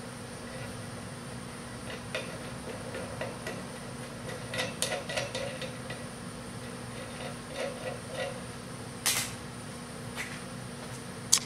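Hex nut being run by hand down freshly die-cut 5/8-11 threads on a rod held in a bench vise: scattered light metallic clicks and scrapes, with two sharper clicks in the last few seconds. The nut running on is a test fit of the new thread, which seems to be working.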